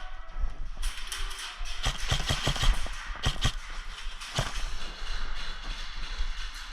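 Airsoft guns firing: a quick string of sharp cracks about two seconds in, then a few single shots, over a steady rustle of movement.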